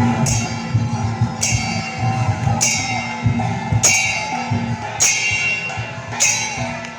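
Loud music with a steady drumbeat and a cymbal-like crash about once a second.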